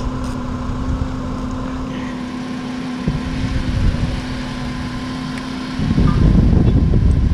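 A steady low mechanical hum holding one pitch, with a heavier low rumble joining about six seconds in.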